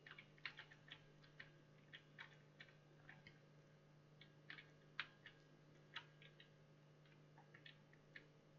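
Faint, irregularly spaced small clicks, a few dozen over the stretch, the loudest about five and six seconds in, over a steady low hum.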